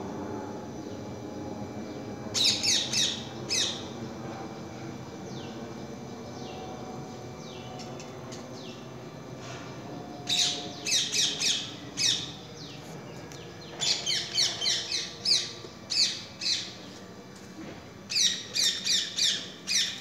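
Green parakeet screeching: bouts of short, shrill squawks in quick succession, about two seconds in, around ten and fourteen seconds, and again near the end.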